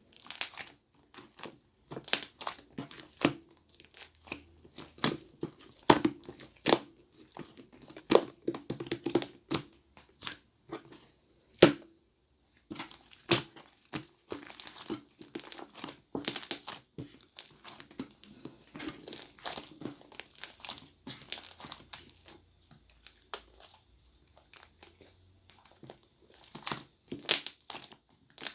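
Cloud slime being squished by hand, giving off a string of irregular crackles, crunches and small pops.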